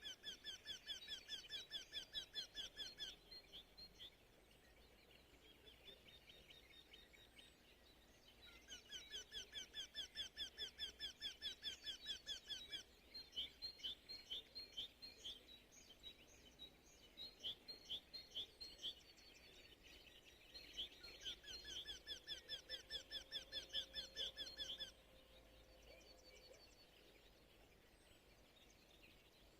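Birds singing: rapid trills of quickly repeated chirps in three bursts of a few seconds each, with scattered single chirps between them, over a faint steady background hiss.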